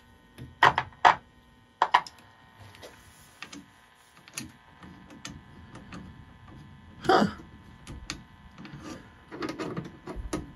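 A 1936 Delco R1116 tube radio chassis being handled and its tuning knob turned: a few sharp clicks near the start, a short louder scrape about seven seconds in, and softer clicks later, over a faint steady whine. No station comes through, which the repairer takes as the sign of a dead local oscillator.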